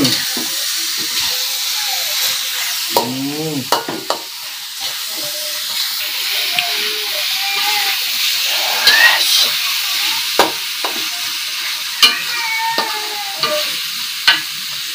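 Eggplant sambal sizzling as it fries in a wok, stirred with a spatula that scrapes and now and then knocks sharply against the pan.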